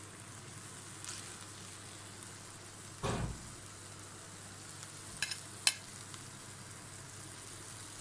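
Cooked sweet rice being tipped and scraped from a steel bowl into a pan on the stove, over a faint steady hiss. A soft thud of rice landing comes about three seconds in, and two sharp metal clinks of the spoon against the bowl or pan come a little past halfway.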